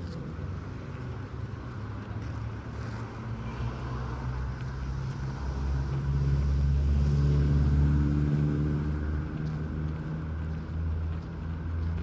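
Road traffic on a nearby street: a motor vehicle's engine hum swells as it passes, loudest about seven to eight seconds in, then fades back to a low traffic rumble.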